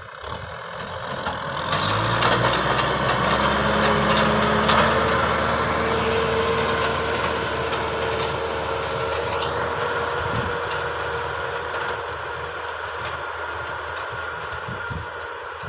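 Kubota M6040 tractor's four-cylinder diesel engine running under load as it drags a tillage implement through dry soil. It grows louder about two seconds in, then slowly fades as the tractor moves away.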